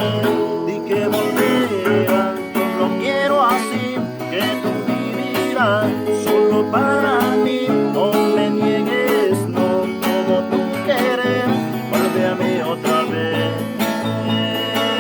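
Guitar music with a picked melody and chords. Several melody notes slide in pitch through the middle.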